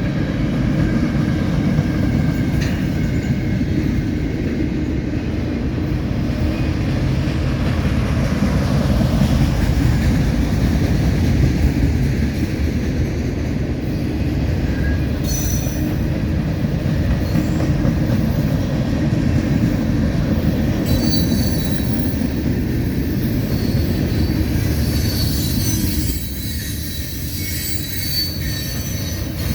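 CSX mixed manifest freight train rolling past, its cars making a steady heavy rumble on the rails. Thin high wheel squeals join in during the last third.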